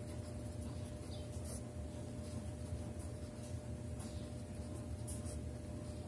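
Pen writing on paper: faint, scratchy strokes as numbers are written, over a steady low electrical hum.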